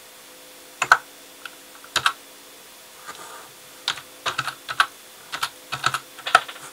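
Computer keyboard keys being tapped: two single keystrokes a second apart, then a quicker, uneven run of keystrokes in the last few seconds.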